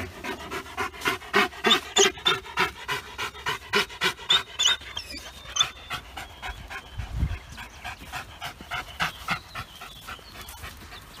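Belgian Malinois panting fast and hard, about three breaths a second, loudest in the first few seconds and easing off after.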